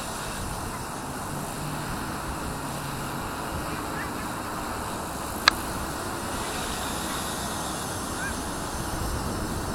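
Steady rush of gusty wind on the microphone, with faint, brief goose honks now and then and a single sharp click about halfway through.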